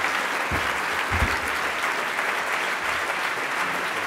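Audience applauding steadily after a speech, with a couple of brief low thumps about half a second and a second in.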